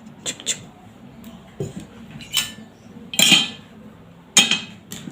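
Small metal gardening hand tools clinking and clattering against each other as they are handled and set down, in a series of separate knocks.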